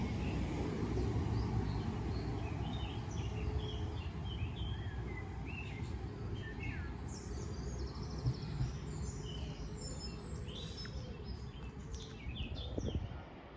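Small birds chirping and singing, many short calls and trills, over a steady low background rumble.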